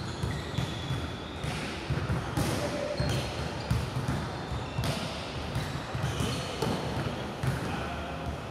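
Balls bouncing on a hard court floor, many irregular thuds overlapping, with a few short high squeaks.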